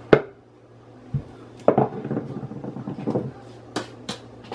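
Wooden rolling pin knocked down onto a granite countertop and rolling on it: a sharp knock just after the start, a low thud, a rattling run of knocks in the middle, and two sharp clicks near the end.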